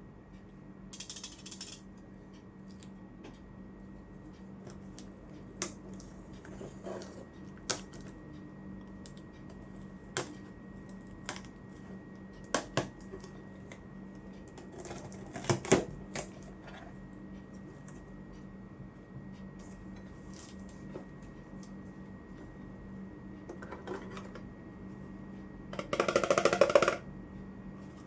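Scattered light clicks and taps from small plastic toy kitchen pieces and their packaging being handled, over a low steady hum. There is a quick cluster of taps about halfway through and a louder patch near the end.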